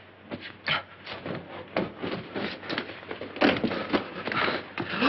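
Rustling of clothes with scattered light knocks and footsteps as garments and objects are handled in a hurry, with a denser stretch of rustling about three and a half seconds in.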